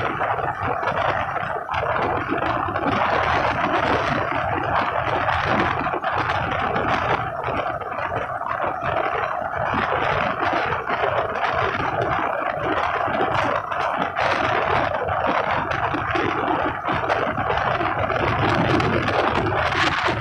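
Passenger express train running at speed, heard from the coach side: a steady rush of wheels on rail and passing air, with irregular rattling.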